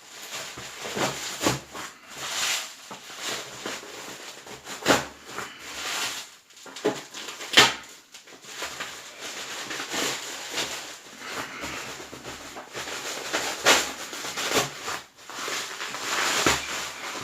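Plastic wrapping film crinkling and tearing as a parcel is unwrapped by hand, with irregular sharp crackles and rustles.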